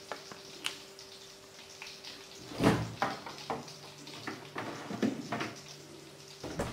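Plastic food tubs and a kitchen knife being handled and set down on a tiled floor: a sharp knock a little before three seconds in, then several lighter knocks and clatters, and one more near the end, over a steady low hum.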